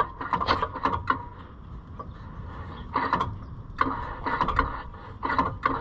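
Golf cart engine's belt-driven starter-generator turning over in several short, uneven bursts, struggling to crank. The owner puts this down to poor battery connections.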